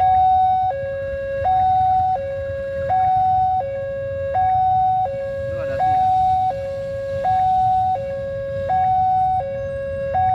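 Railway level-crossing warning alarm sounding while the gates are down for an approaching train. It is a loud electronic two-tone signal that alternates between a lower and a higher tone, each held about 0.7 s, over and over.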